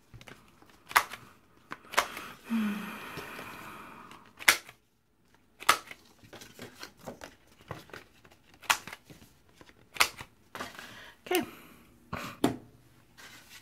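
Handheld corner rounder punch snapping through cardstock corners: a series of sharp clicks, about one a second, with card rustling between punches.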